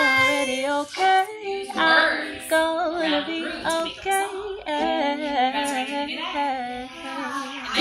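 A woman singing a melody with long held notes, with children's voices singing along.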